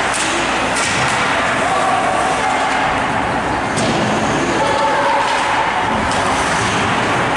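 Ice hockey rink during play: a steady din with a few sharp stick-and-puck clacks, about three in all, and faint voices in the background.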